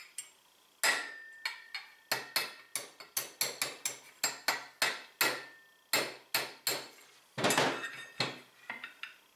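Steel hammer tapping a 1/8-inch roll pin punch to drive a roll pin out of a roller in a Polaris RZR XP 1000 secondary clutch: a steady run of sharp metallic taps, about three a second, some with a brief ring. A longer, louder clatter comes near the end.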